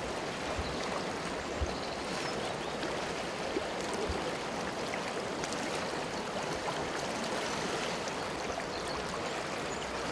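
Steady rushing of a shallow, fast-flowing river running over a stony bed.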